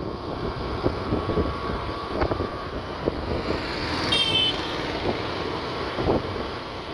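Road traffic and vehicle noise heard from a moving vehicle: a steady rumble of engines and tyres, with a short high-pitched horn-like toot about four seconds in.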